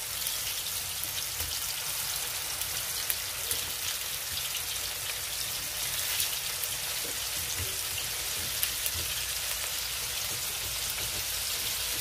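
Kefta (minced-meat patties) sizzling steadily as they shallow-fry in oil in a pan. A few light clicks of a metal fork against the pan are heard as the patties are turned.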